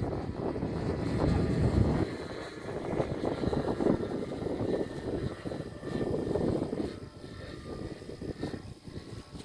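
Gas-powered radio-controlled model airplane engine running in flight, a faint steady high-pitched tone, with gusts of wind buffeting the microphone.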